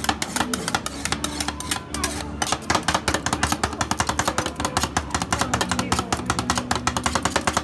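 Two metal spatulas chopping and scraping on a frozen steel cold plate, mashing banana and Nutella into rolled ice cream base: a rapid clatter of metal strikes, several a second.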